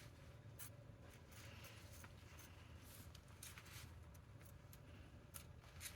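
Faint scraping and light clicking as a rubber wiper refill is slid along the channel of the wiper blade frame.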